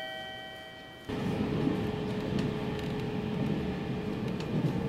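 A few sustained chime-like tones, cut off about a second in by a local train's running noise heard from inside the car: a steady rumble of wheels and running gear with a constant hum.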